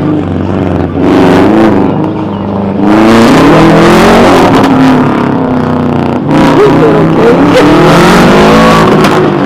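A car engine revving hard, its pitch climbing and dropping again and again as it accelerates and lifts, with a few sharp pops.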